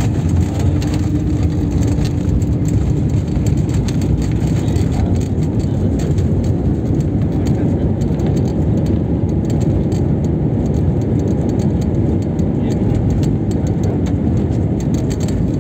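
Steady, loud low rumble inside a jet airliner's cabin as it rolls along the runway, the engines and the wheels on the runway blending into one continuous noise. A faint steady whine sits under it for the first few seconds.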